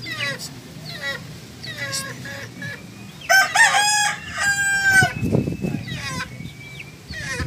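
Rooster crowing once, loudly, about three seconds in, a long call of nearly two seconds, among repeated short falling calls from other chickens.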